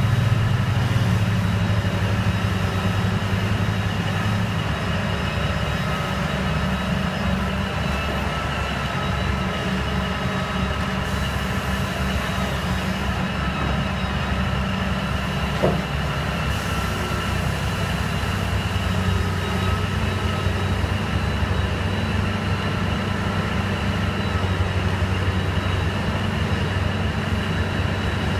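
Liebherr 984 Litronic hydraulic excavator working, a steady heavy diesel drone with a thin high whine held over it. One short knock comes about halfway through.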